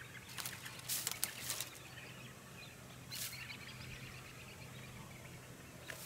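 Quiet outdoor ambience with a steady low hum and a few faint, short rustles and clicks, clustered in the first couple of seconds and once again about three seconds in.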